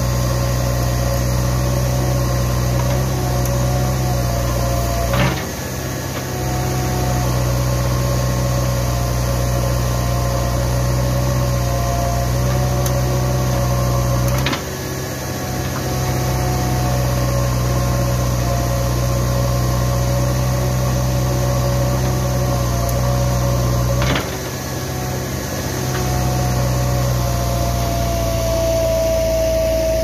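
JCB 3DX backhoe loader's diesel engine running steadily while working. Three times, about nine to ten seconds apart, a sharp knock is followed by the engine's low note dropping for about a second before it picks up again.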